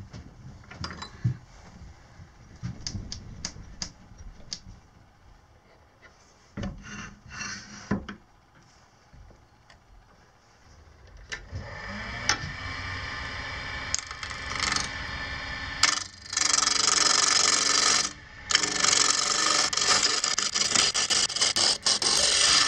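Scattered knocks and clicks as a branch blank is fitted between centres and the tool rest is set on a small benchtop wood lathe. About halfway through the lathe motor starts and runs. In the last third a turning tool cuts the spinning blank, a loud steady scraping as the bark is roughed off, with one brief pause.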